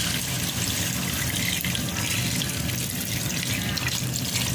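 A steady stream of water pouring into a metal cooking pot packed with raw crabs, splashing over them as the pot fills.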